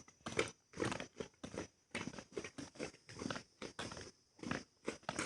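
Quick, irregular crunches and rustles, about three or four a second, from people working in dry soil and vines while gathering harvested sweet potatoes.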